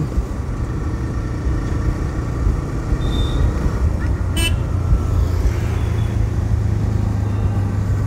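TVS Raider 125's single-cylinder engine running steadily under the rider in city traffic, with road noise. A brief vehicle horn toot sounds about four and a half seconds in.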